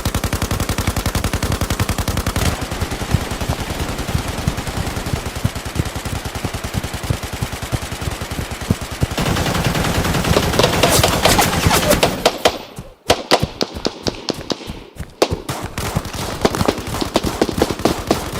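Machine-gun fire in sustained rapid automatic bursts for about twelve seconds, then thinning out into scattered, irregular bursts and single shots.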